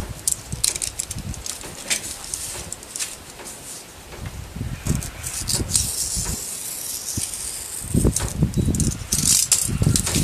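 Sheets of paper being handled, slid and rustled over a cutting mat, in short crackly bursts. Wind buffets the microphone in gusts, heaviest near the end.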